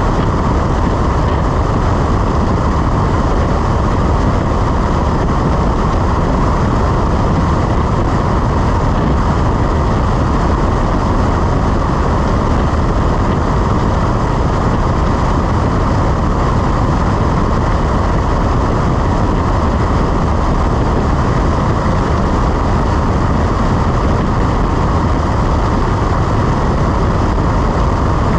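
Cessna 172 in flight: a steady, unchanging noise of engine, propeller and rushing air.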